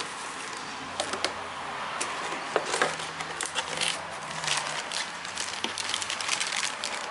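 Paper sheets and plastic packaging rustling and crinkling as they are handled, with many small scattered clicks.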